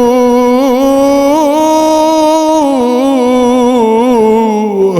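A male eulogy reciter (radood) holds one long, ornamented sung note in an Arabic elegy chant, with small wavers along it. The pitch drops sharply just before the end.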